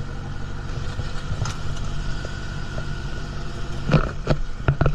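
Diving boat's engine running steadily, with a few sharp knocks near the end.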